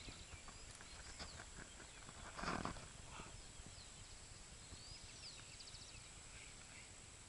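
Quiet outdoor ambience with faint, scattered short bird chirps, and a brief rustling swish about two and a half seconds in.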